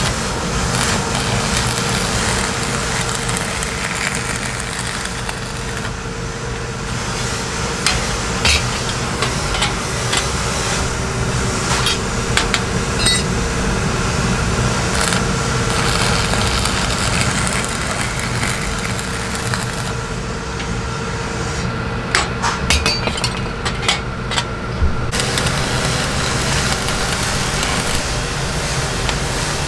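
Electric arc (stick) welding crackling and sputtering steadily over a steady hum, with scattered sharp metallic taps, clustered about a third of the way in and again near the end.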